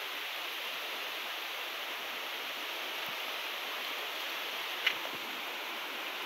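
Steady hiss of heavy rain falling, with a single sharp click about five seconds in.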